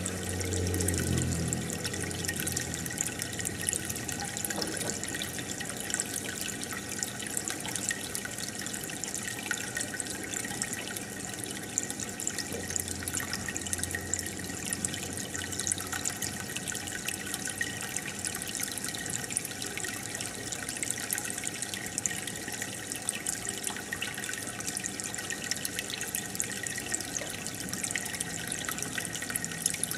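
Aquarium water bubbling and trickling: a steady stream of air bubbles fizzing at the surface with fine crackles, and a low hum that swells briefly a couple of times.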